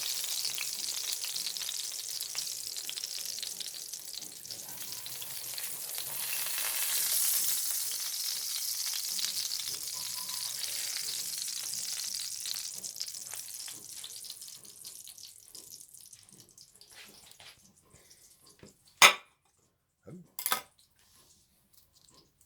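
Thick slices of bologna frying in hot oil in a pan: a steady sizzle that dies away about two-thirds of the way through. Near the end come two short, sharp knocks about a second and a half apart, the first very loud.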